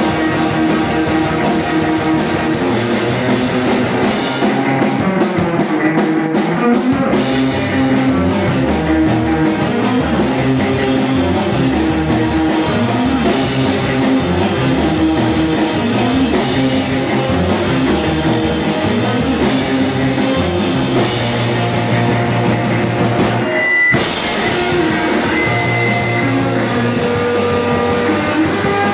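Rock band playing live: distorted electric guitars, electric bass and a drum kit, loud and driving, with a split-second stop about five seconds before the end.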